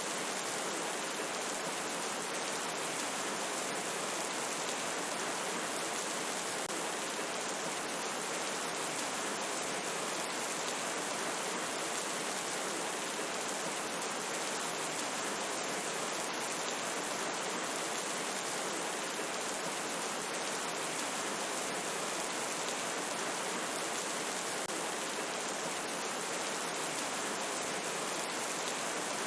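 Steady rainfall: an even, unbroken hiss of rain with no distinct drops or pauses.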